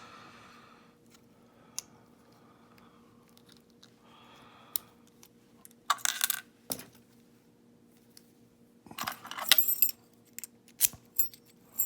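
Small metal lock parts clinking and jingling as a picked ISEO euro cylinder is handled and taken apart. There are a few light clicks, then two short bursts of jingling, about six seconds in and again around nine to ten seconds.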